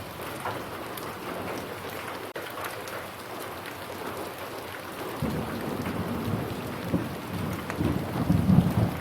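Steady rain falling, with many small drop ticks. From about halfway through, a low rumble of thunder builds and is loudest near the end.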